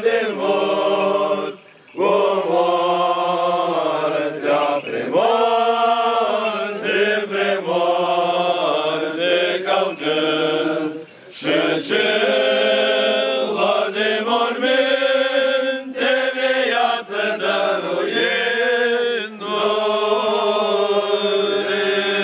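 Orthodox church chant: voices singing slow, drawn-out melodic lines over a steady held low note. There are two brief breaks, about two seconds and eleven seconds in.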